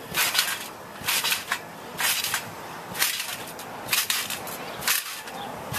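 Trampoline bouncing: a sharp snap from the mat with each bounce, about once a second.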